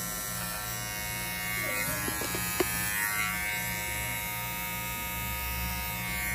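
Cordless T-blade hair trimmer running with a steady electric buzz as it edges hair around the ear. A single sharp click sounds about two and a half seconds in.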